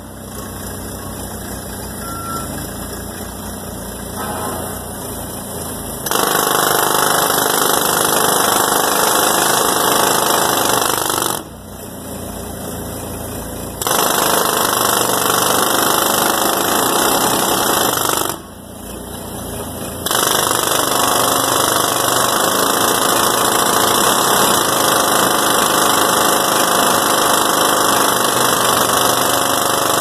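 Forklift-mounted pneumatic jackhammer breaking concrete, hammering in three long runs that start about six seconds in, with two short pauses of about two seconds between them. Before and between the runs the forklift's engine is heard running.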